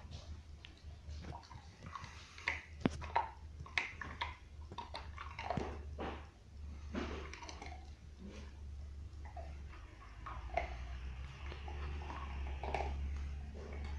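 A dog gnawing and chewing on a bone: irregular clicks and scrapes of teeth on bone, over a steady low hum.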